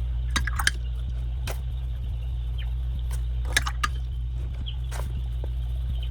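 A steady low hum with scattered light clicks and taps, about ten in all, from art supplies being handled and set down on a table while swatching.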